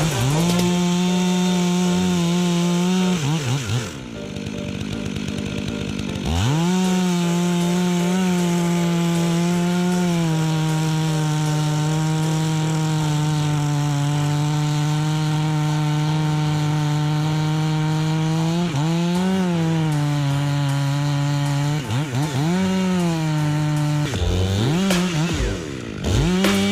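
Stihl MS 500i chainsaw cutting into a large ash trunk during felling. It runs at full throttle, drops back for a couple of seconds about 3 s in, then holds a long steady cut before several short revs up and down near the end.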